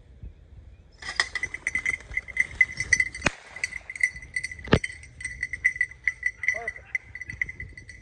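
A bell on a running bird dog's collar, jingling fast and unevenly from about a second in, with two sharp knocks in the middle.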